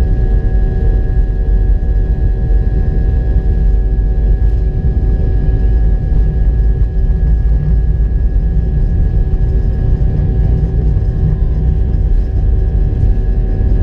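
Airbus A319's twin jet engines running at high power, heard from inside the cabin: a loud, steady rumble with several steady whining tones over it.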